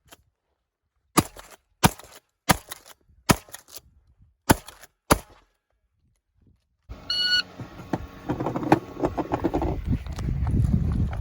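A string of shotgun shots, seven sharp bangs over about four seconds, two of them followed at once by a second crack. A short electronic beep comes about seven seconds in, then steady scuffing, rustling noise of movement.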